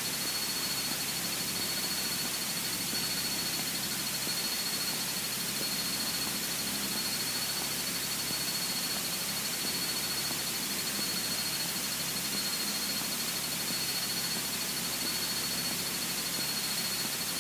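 Steady electronic hiss with a constant thin high whine, as on a cockpit headset/intercom audio feed, over a faint low hum from the Cessna 152's engine.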